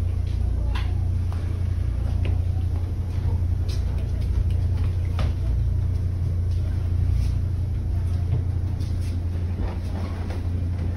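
Steady low drone of a passenger boat's engine heard from inside its cabin, with a few light knocks and faint voices over it.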